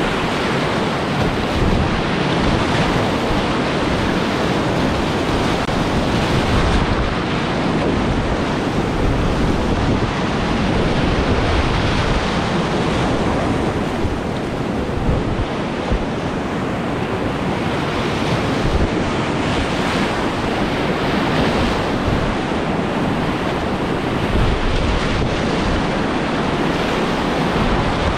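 Steady, loud rush of whitewater rapids churning around a kayak running through them, heard close up from the boat.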